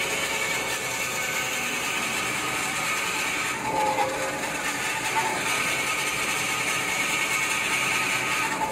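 Band-saw paper log cutting machine running steadily, a continuous mechanical whirr, with a short whining tone about four seconds in and again at the end.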